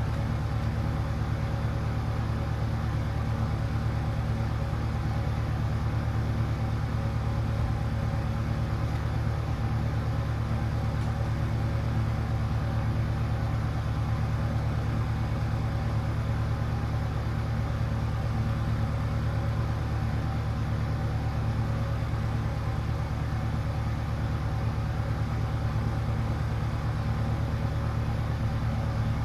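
Steady low hum at an even pitch and level, with no breaks.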